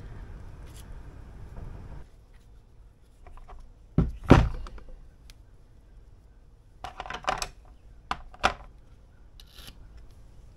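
Metal parts of a tractor's gear-type hydraulic pump being handled and set down on a workbench: two heavy knocks about four seconds in, then a few lighter metallic clicks and clinks.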